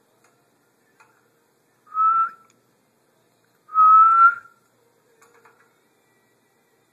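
Two clear whistled notes at the same pitch: a short one about two seconds in, then a longer one that rises slightly in pitch.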